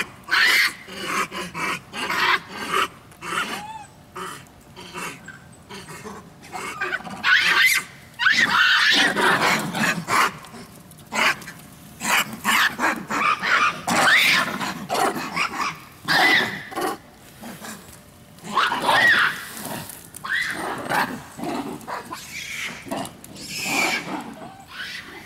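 Japanese macaques calling over and over: harsh grunts and barks mixed with short squeals that rise and fall in pitch.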